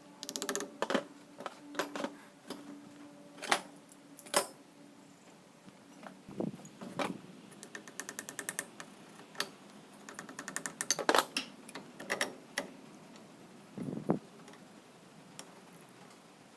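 Small hard objects handled and set down on a workbench: irregular sharp clicks and clacks, with a couple of quick runs of rapid clicking in the middle.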